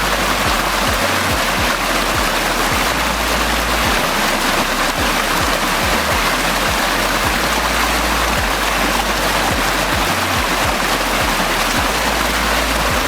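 Waterfall water rushing in a steady, loud wash of noise, with a bass-heavy music track playing underneath.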